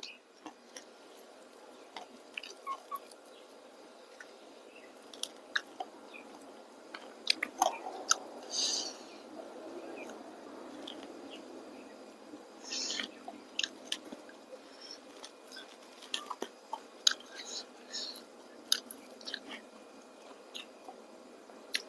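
Quiet close-up sounds of a person eating crispy fried fish: chewing with scattered small crunches and clicks, and a few louder crunchy bursts about eight and thirteen seconds in.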